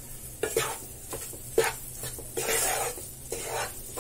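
Wooden spatula stirring and scraping thick ghee-roasted maida (flour) around a non-stick kadhai, in several separate strokes as cardamom powder is mixed in.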